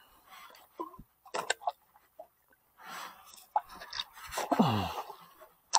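Scattered clicks, scrapes and rubbing from a jigging rod and conventional reel worked by hand, with a low sound falling in pitch near the end.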